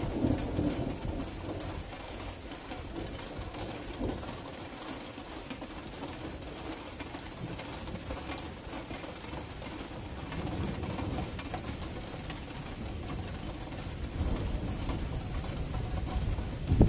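Rain falling steadily in a night thunderstorm, with low rolls of distant thunder that die away about a second in and build again near the end.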